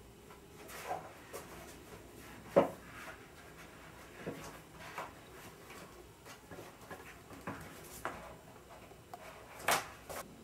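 Scattered rustles of paper and light knocks as sheets and objects are handled and moved on a cluttered work table, with a sharp knock about two and a half seconds in and a louder clatter near the end.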